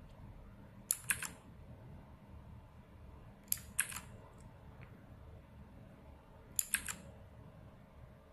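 Mechanical keyboard keys pressed in three short clusters of two or three clicks each, a few seconds apart: a key combination pressed repeatedly to cycle the RGB backlight modes.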